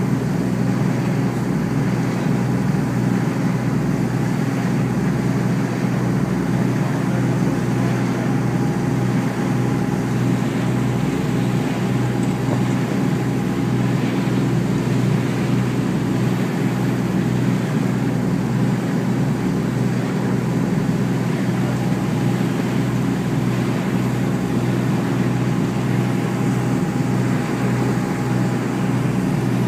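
Steady drone of a ship's engine underway, a constant low hum with wind noise over it.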